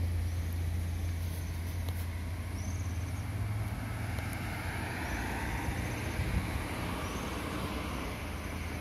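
Outdoor ambience: a steady low rumble under an even hiss, with faint short high chirps repeating every second or two.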